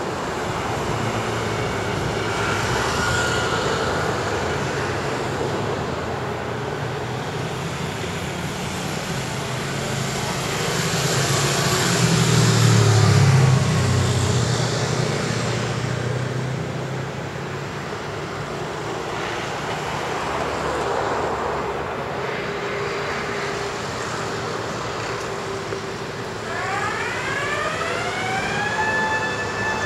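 City street traffic noise, with a vehicle passing with a low rumble about halfway through. Near the end a rising electric whine climbs in pitch and then holds steady, like an electric train's motors accelerating.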